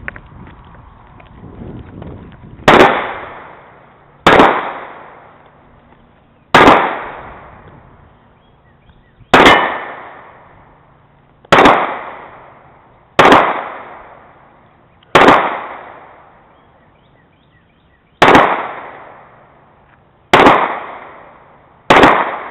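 Pistol fired ten times at a slow, uneven pace, the shots about one and a half to three seconds apart, each followed by a short fading echo.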